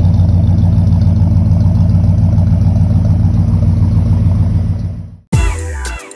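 1989 Ford F-150 pickup running steadily at idle through its dual exhaust and new mufflers. About five seconds in the engine sound fades away and electronic music with a beat cuts in.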